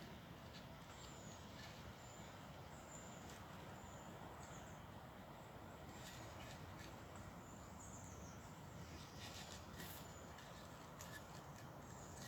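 Quiet forest ambience with a small bird's high, thin calls repeating about once a second, and a few soft clicks and rustles.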